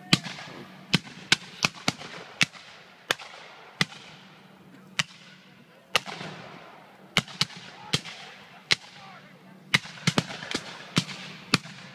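Scattered black-powder rifle-musket fire from a reenactors' infantry line: about twenty shots at uneven intervals, some in quick runs of two or three, each followed by a rolling echo.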